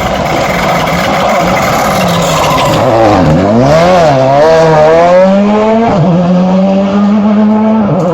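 Rally car engine coming through a hairpin, loud and close: the revs fall as it brakes about three seconds in, then climb hard as it accelerates out, with a gear change about six seconds in before holding high revs.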